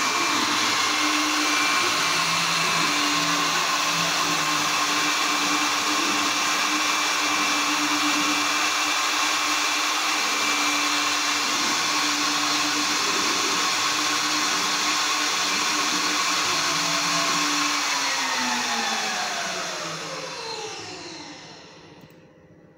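Mini CNC router spindle motor running at high speed: a steady whine over a loud hiss. Near the end it is switched off and winds down, its pitch sliding lower over about four seconds as it coasts to a stop.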